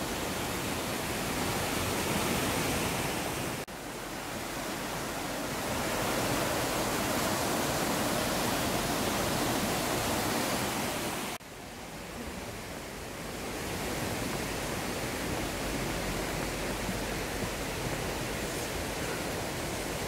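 Mountain stream rushing over boulders in white-water rapids, a continuous full hiss of water. The sound cuts out abruptly for an instant twice, about four and eleven seconds in, and resumes with a slightly different tone.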